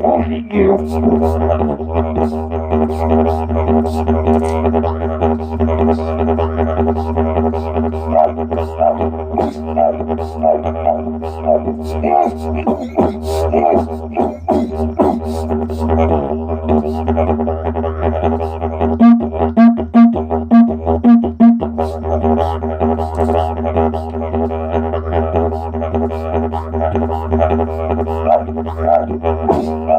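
Didgeridoo drone played continuously, with its tone colour shifting in a quick rhythmic pattern. About two-thirds of the way through, the drone is cut into five short, punchy pulses before it runs on again.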